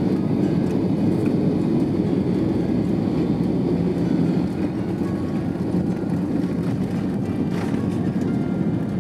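Steady, loud rumble inside the cabin of an Airbus A320-214 during its landing, heard from a window seat. The rumble eases slightly about four and a half seconds in.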